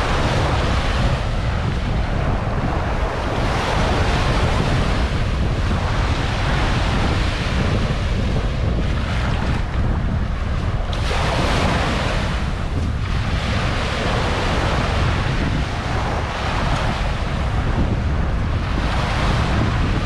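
Small waves breaking and washing up a sandy shore, each wash swelling and fading every few seconds, over a steady low rumble of wind buffeting the microphone.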